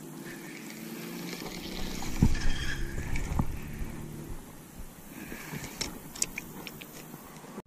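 Spinning fishing reel cranked during a cast and retrieve: a steady mechanical whir with scattered clicks, over a low wind rumble on the microphone.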